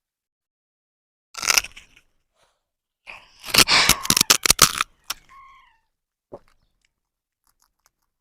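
Baby parrots' harsh, raspy squawks in two bursts, one about a second and a half in and a longer one from about three to five seconds in, the longer one broken by sharp crackles; a short falling chirp follows just after five seconds.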